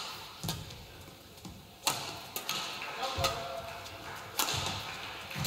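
Badminton rally: a racket strikes a feathered shuttlecock about five times, each hit a sharp crack roughly a second apart.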